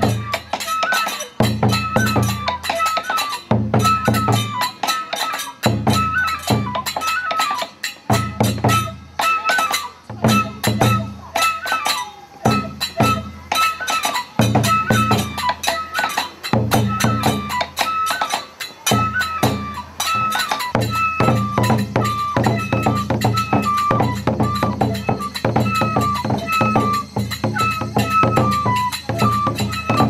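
Kagura music: a large barrel drum beaten with sticks in a driving rhythm, with a short high melody, most likely a bamboo flute, repeating over it and a dense run of sharp metallic clashes.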